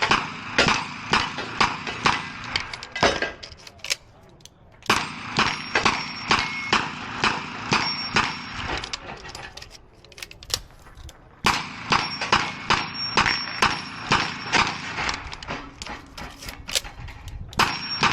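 Smith & Wesson 929 9mm revolver firing rapid strings of shots at steel targets, with plates ringing on hits. There are three quick runs of shots, each followed by a brief lull.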